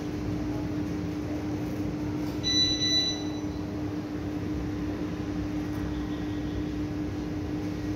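A steady low hum runs throughout. About two and a half seconds in, a domestic canary gives one short, clear whistled note.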